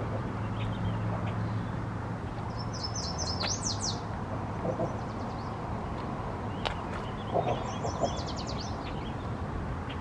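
A songbird singing two short, fast, high trilled phrases, about three seconds in and again near eight seconds, with a few faint chirps between, over a steady low rumble.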